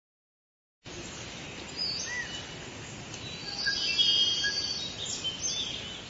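Several birds chirping and whistling over a steady background hiss. It starts about a second in and fades out at the end.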